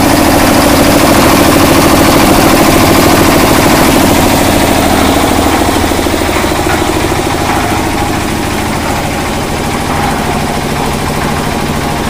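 The diesel engine of a 1.5-bag concrete mixer running steadily. The maker points to the absence of any vibration rattle or rumble from the mixer: only the engine is heard.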